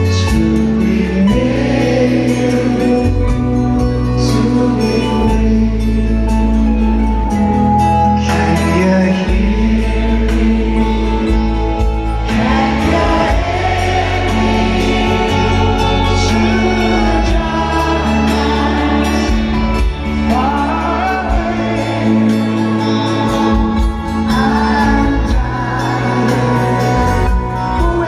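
Live band playing a slow ballad with a male lead vocal, picked up from within the arena audience.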